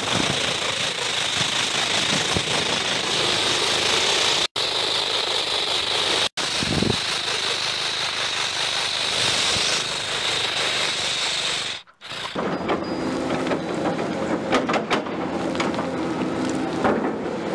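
Truck engine sound effect: a dense rattling run, cut off briefly twice. After a short break about twelve seconds in, it gives way to a lower, steady running sound with hums and scattered clicks.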